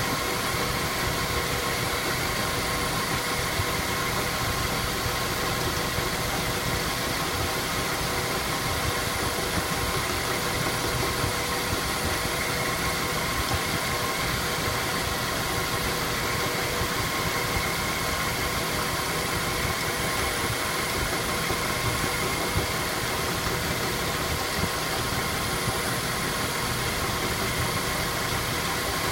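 Mazda 3 with an automatic transmission running steadily: an even mechanical noise with a few steady whining tones held over it. The car has a knock in the automatic gearbox that comes on when coasting and goes away under throttle.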